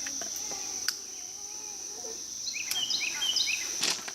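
Crickets trilling steadily in a high, even chorus, with a bird calling several quick stepped notes past the middle. A single sharp crack sounds just before the end.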